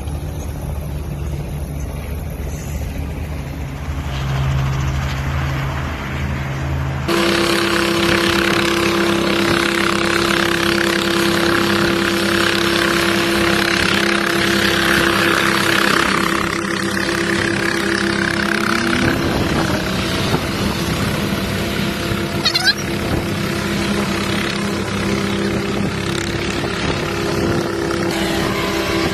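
Small helicopter's engine and rotor running on the ground: a low pulsing hum that jumps louder about seven seconds in, carrying a steady whine, with a tone rising near the two-thirds mark.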